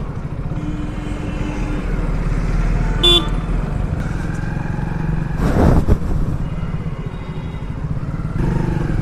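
A 100cc motorcycle engine running steadily under way. A short horn toot comes about three seconds in, and a brief rush of noise follows around the middle.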